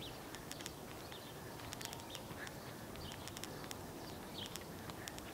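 Faint outdoor ambience with small birds chirping in short calls every second or so, and scattered light clicks throughout.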